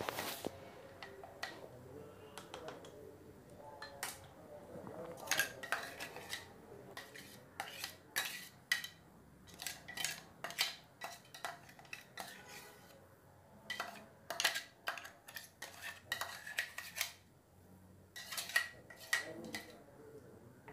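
Spatula scraping and knocking inside a stainless-steel mixer-grinder jar as thick blended masala paste is scraped out into a pot. It comes as irregular clusters of sharp clicks and scrapes.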